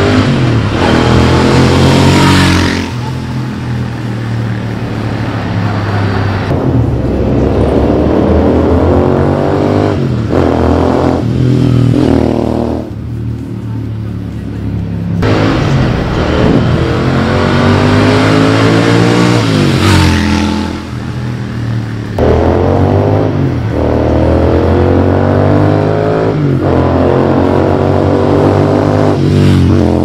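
Royal Enfield Interceptor 650 parallel-twin exhaust as the bikes accelerate hard past, the engine note climbing and dropping at each gear change, several times over.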